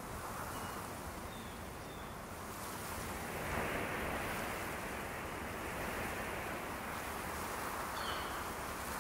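Wind rushing through a pine forest, rising in a gust about three and a half seconds in, with a few faint short high chirps.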